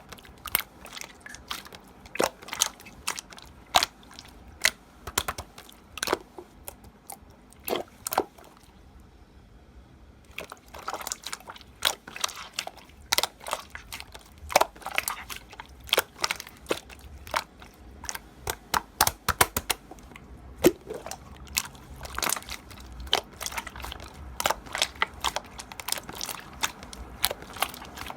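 Slime being squeezed and pressed by hand, giving irregular sharp clicks and crackling pops, with a short pause about a third of the way in.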